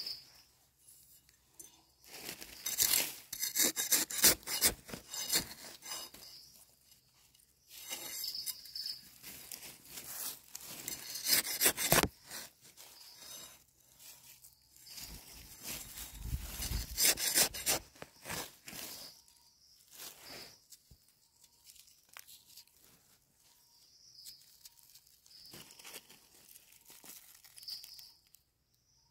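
Hands scraping and rustling through dry leaf litter and soil, digging termite mushrooms out of the ground, in three main bouts of a few seconds with quieter gaps between.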